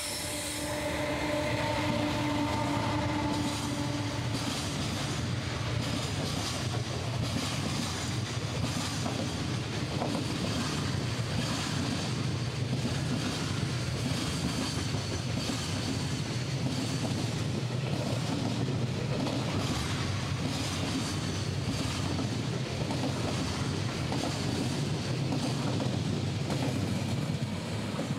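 Electric freight train passing at speed: the locomotive goes by first, with a steady pitched hum over the first few seconds. Then a long string of container wagons rumbles past, the wheels clattering steadily over the rails.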